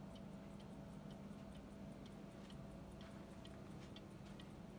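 French mantel clock ticking, a quick, even run of faint ticks.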